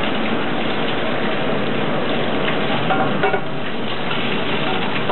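Water running from a tap over little neck clams and mussels being rinsed to flush out sand, a steady rushing hiss, with the shells clicking together about three seconds in.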